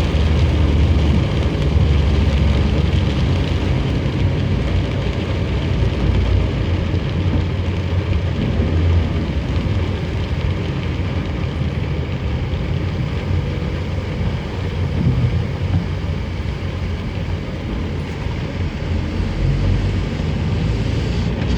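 Car driving in heavy rain, heard from inside: a steady low rumble of engine and tyres on wet road with an even hiss of rain and spray.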